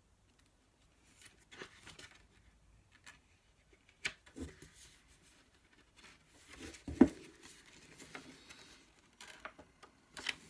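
Paper pages being handled and turned: scattered soft rustles and light knocks, the loudest about seven seconds in.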